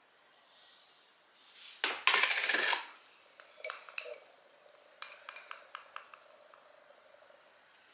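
Metal utensils and containers handled on a stainless steel bench. A loud scrape lasting under a second comes about two seconds in, followed by a run of light metallic clicks and taps.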